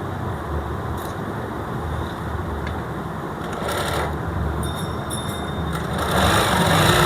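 Straight-stitch shuttle sewing machine running, stitching through cloth, getting louder near the end. This is a test run with the shuttle-to-needle timing freshly set.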